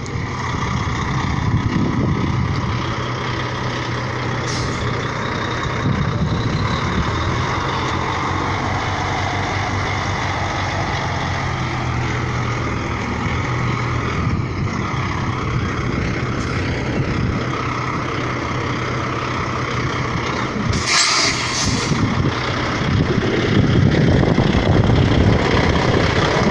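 Semi-truck diesel engine running at low revs while the tractor-trailer manoeuvres, getting louder near the end. A short, sharp air-brake hiss about three-quarters of the way through.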